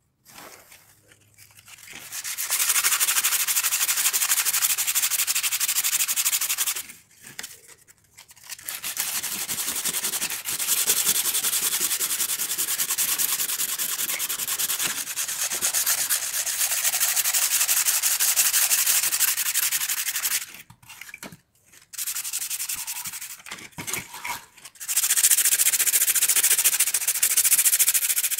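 Sandpaper rubbed by hand over the old wood of a lantern frame: steady scratchy strokes, broken by a few short pauses.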